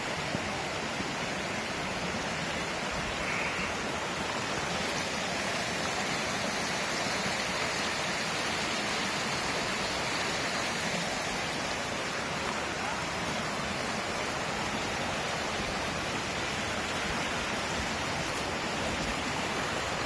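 Mountain stream rushing over rocks in small cascades, a steady, even rush of water.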